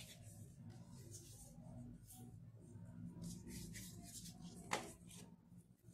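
Faint soft rustling of hands rolling portions of pizza dough into balls, with one light tap about four and a half seconds in.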